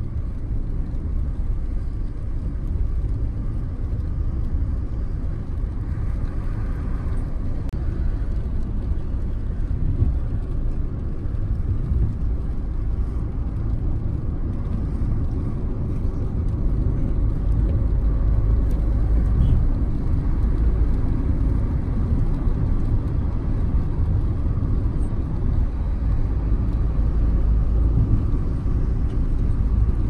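Steady low road noise of a car driving at speed, heard from inside the cabin: tyre and engine rumble, getting a little louder about halfway through.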